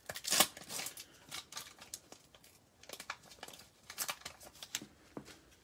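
Foil wrapper of a baseball card pack being torn open and crinkled by gloved hands: a run of sharp crackles and rustles, loudest about half a second in.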